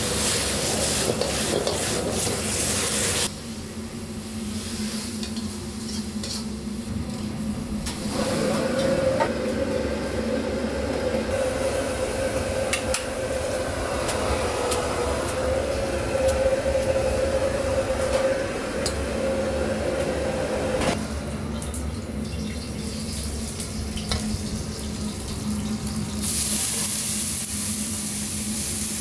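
Commercial kitchen sounds: a metal ladle stirring sauce sizzling in a wok over a gas burner, then a steaming stock pot being ladled from, with scattered clicks of metal utensils. A steady hum runs underneath, and the background changes abruptly several times.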